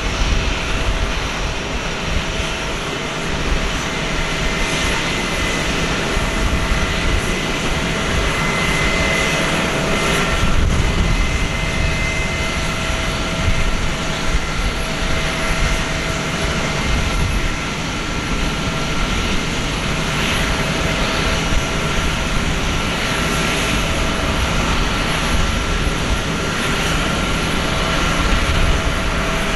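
Airbus A321-231's IAE V2500 turbofan engines running at taxi power as the airliner taxis. A steady rumble with a constant whine over it.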